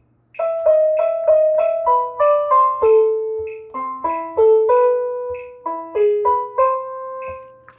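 Vangoa VGD611 61-key digital piano in its piano voice playing a simple single-note melody, some notes held over the next, over a steady metronome click beat of a few ticks a second from the HyperScribe recording.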